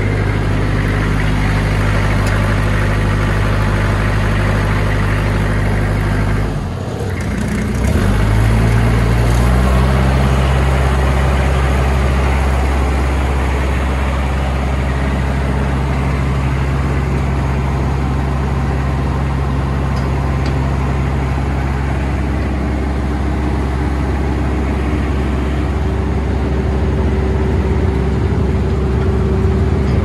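Jensen wood chipper's engine running steadily; about seven seconds in it dips briefly, then rises in pitch and settles at a higher steady speed.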